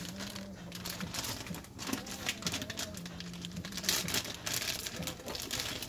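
Irregular crinkling and rustling, like something being handled off to the side, over a steady low hum.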